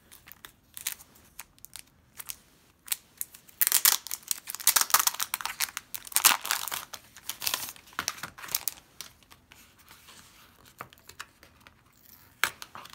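Clear plastic wrapper crinkling and tearing as it is pulled off a paper envelope by hand. Scattered crackles at first, a dense stretch of crinkling through the middle, then a few more sharp crackles near the end.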